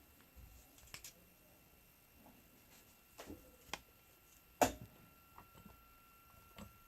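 Scattered small clicks and taps of tools and parts being handled during soldering work, with one louder knock a little past halfway. A faint steady high whine runs underneath.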